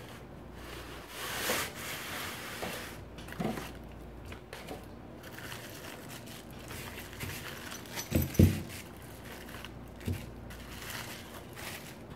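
A box being unpacked by hand: plastic bags and bubble wrap crinkling and rustling, with a few soft knocks as packed parts are set down on the table, the two loudest about eight seconds in.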